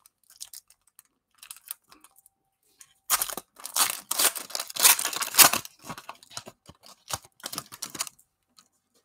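A plastic trading-card pack wrapper being torn open and crinkled by hand. The tearing is loudest for a couple of seconds about three seconds in, followed by lighter crinkling and rustling that stops near the end.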